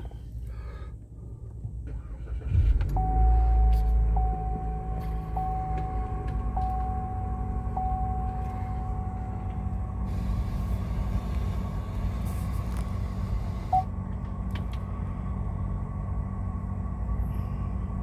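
GM LTG 2.0-litre turbocharged four-cylinder starting about two and a half seconds in on its first start with fresh oil. It flares to a raised idle, then settles into a steady idle. The car's chime dings five times about a second apart over the first several seconds of running.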